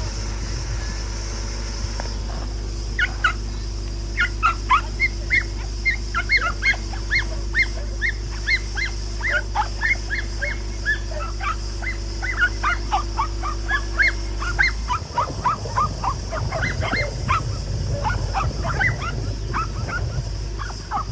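Dogs yipping and barking in short, high calls, about two a second, over a steady low hum.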